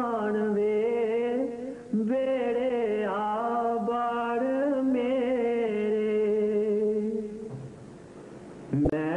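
Slow devotional hymn sung in long, drawn-out notes that waver and bend in pitch, with no clear words. The singing breaks briefly about two seconds in, pauses for about a second near the end, then starts again.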